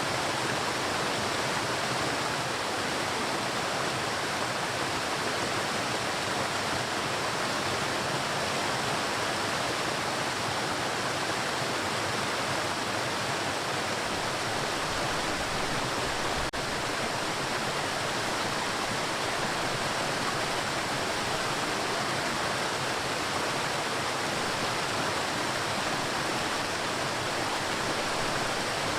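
Waterfall: a steady, unbroken rush of falling water, with a single brief click just past halfway.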